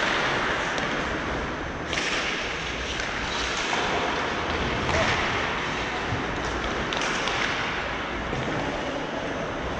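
Ice hockey play on a rink: a steady rush of skates on the ice, with three sharp cracks of sticks and puck about two, five and seven seconds in.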